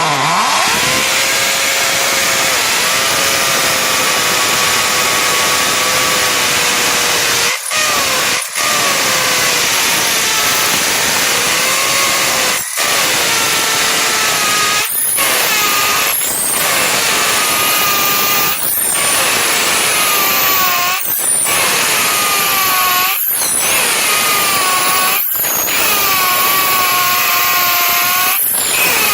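Electric drill running at steady speed with a high motor whine. Its sound briefly breaks off and picks up again about ten times, more often in the second half.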